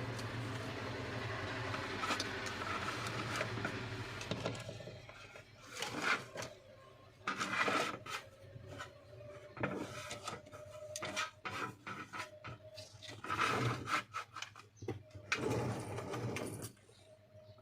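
A steady mechanical whirr for about four and a half seconds, then irregular clicks and scrapes of small tools working on an opened smartphone while its charging socket is being removed.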